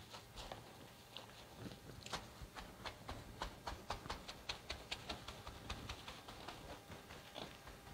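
Light quick taps and pats, fairly regular at about five a second through the middle, from hands or a plastic sack pressing on wet wool fibers under mosquito netting during wet felting.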